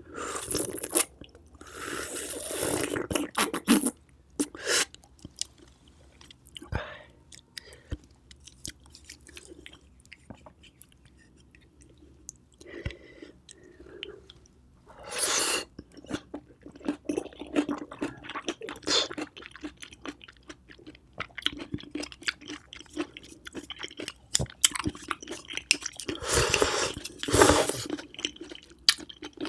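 Close-up eating sounds: baked oysters slurped off the half shell and chewed with wet smacking clicks throughout. Loud slurps come at the start, again a few seconds later, around the middle and near the end.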